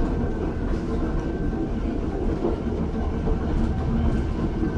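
Ueda Kotsu Moha 5253 'Marumado' (round-window) electric railcar running between stations, recorded aboard: a steady rumble of wheels on the track with a faint steady tone above it.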